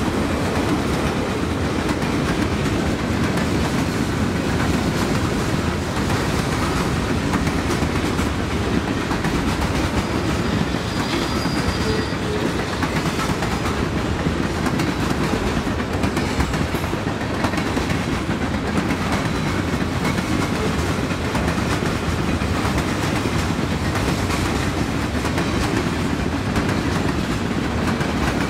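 A Pan Am Railways freight train's boxcars and lumber cars rolling past at steady speed: a continuous low rumble with the clatter of steel wheels over the rail joints.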